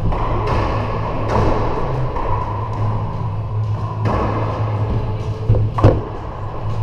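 Racquetball rally: a rubber racquetball smacked by racquets and hitting the court walls, each smack echoing around the enclosed court, the two loudest coming close together about five and a half seconds in. A steady low hum runs underneath.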